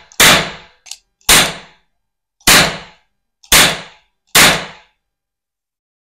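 Toy cap-gun revolver firing caps: five sharp bangs about a second apart, each with a short fading tail, with a light click between the first two.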